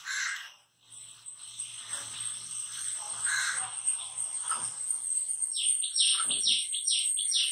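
Chalk scraping on a blackboard as lines are drawn. Near the end comes a rapid run of short, high chirps.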